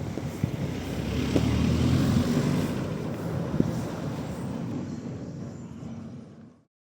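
A WRC rally car passing by, its engine and tyre noise swelling to a peak about two seconds in and then fading, before the sound cuts off near the end.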